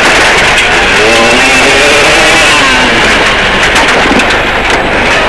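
Rally car engine heard from inside the cabin, revving up out of a tight right hairpin. Its pitch climbs over the first couple of seconds, then levels off and drops. Steady gravel and road noise runs underneath.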